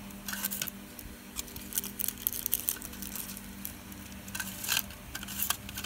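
Small plastic clicks and ticks from a VHS cassette's tape reels and opened plastic shell being handled and turned by hand, scattered and irregular, over a steady low hum.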